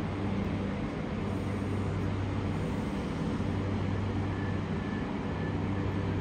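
Diesel railcar's engine running with a steady low hum as it draws up and stands at the platform. A faint intermittent high beeping comes in near the end.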